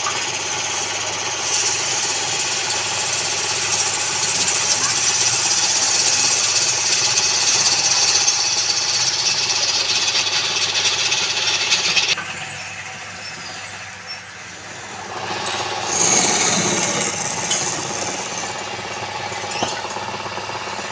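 Woodturning lathe running with a steady hum and a loud hiss of work on the spinning wood. The hiss drops away about twelve seconds in and picks up again about four seconds later.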